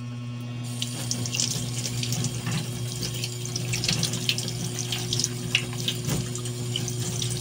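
Tap water running into a stainless steel sink and splashing over hands as they rinse and rub raw pork belly slices. The splashing fills in within the first second, over a steady low hum.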